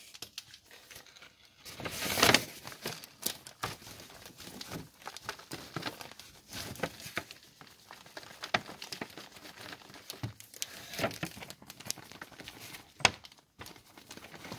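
Paper bag crinkling and rustling as it is held open while powdered sugar is poured in, with scattered sharp crackles of the paper and a louder rustle about two seconds in.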